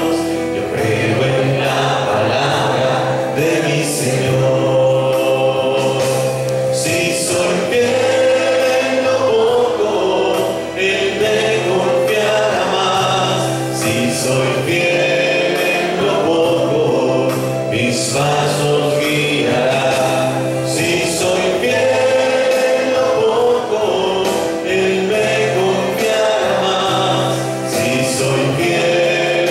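Liturgical singing: several voices sing a church song over instrumental accompaniment that holds steady bass notes.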